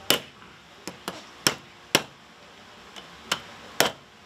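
Hammer striking a spider crab leg on a granite countertop to crack the shell: a series of sharp, irregularly spaced knocks, five of them loud.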